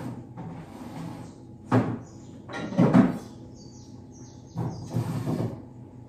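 Kitchen handling noises: a sharp knock, then a louder clatter of knocks about a second later, and two more bumps near the end, like cupboard doors and utensils being moved.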